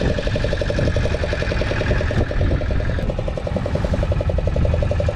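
Fishing boat's engine running steadily with a fast, even pulse and a low rumble underneath.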